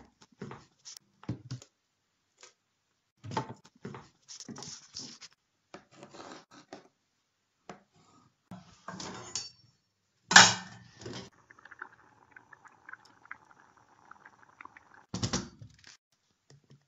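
Kitchen utensil and dish sounds: a run of short clicks, taps and knocks, a loud sharp clatter about ten seconds in followed by a few seconds of a steady faint sound with a light tone, and another knock near the end.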